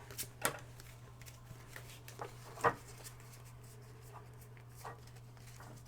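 Scattered light taps and clicks from hands handling Pokémon card packs and packaging, about six in all, the sharpest about half a second in and near the middle, over a steady low hum.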